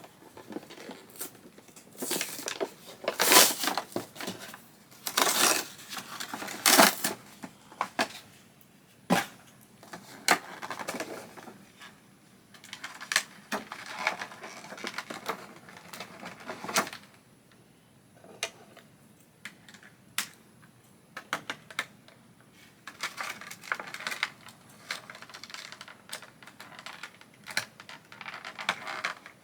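A doll's retail packaging being handled and opened by hand: irregular clicks and taps of stiff plastic and short crinkling, tearing rustles, coming in clusters with brief lulls between them.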